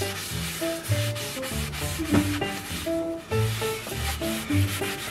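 A rag rubbing back and forth over a wooden boat washboard, wiping it down with spirits, with background music carrying notes and a bass line over it.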